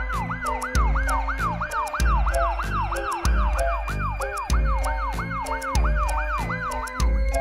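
Ambulance siren sound effect: a fast rising-and-falling wail, about three cycles a second, that stops near the end, over background music with a steady beat.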